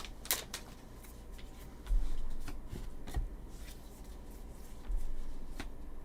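Stack of Topps baseball trading cards being handled and flipped through by hand: light, scattered card-on-card slides and clicks, with a few dull handling bumps.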